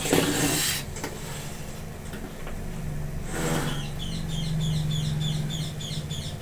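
Rustling and a short clatter as the heater and its cable are handled and set down, then a small bird chirping in a fast run of high, falling notes, about five a second, through the last couple of seconds.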